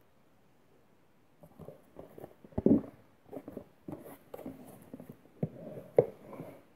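Hands handling and turning over a cardboard product box: fingers rubbing and sliding on the cardboard in irregular scrapes, with sharp knocks. The sounds start about a second and a half in, and there is a louder knock near the end.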